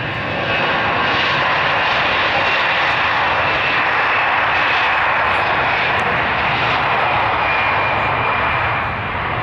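Airbus A321-211's CFM56 turbofan engines at takeoff thrust during the takeoff roll: a loud, steady jet noise with a thin high whine over it. It swells about half a second in and eases a little near the end.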